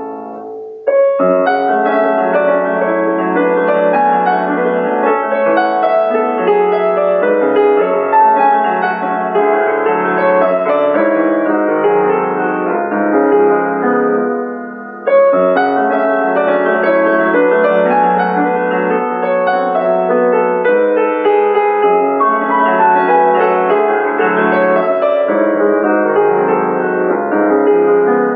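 Solo grand piano playing a dense classical passage, with many notes at once. The sound briefly drops about a second in, then falls away just before halfway and comes back in strongly, fading near the end.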